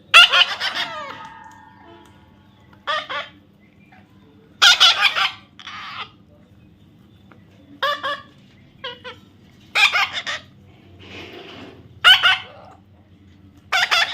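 A parrot giving a series of loud, harsh squawking calls, about eight short calls spaced one to two seconds apart, the loudest just at the start.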